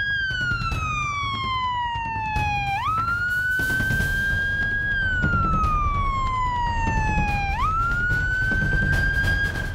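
Ambulance siren wailing: the tone slides slowly down, then sweeps quickly back up, about once every five seconds, twice in all.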